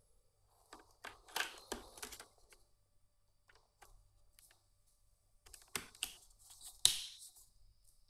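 Handling noises: a quick run of clicks and rustles, then a quieter gap, then a second run of clicks ending in one sharp, louder click.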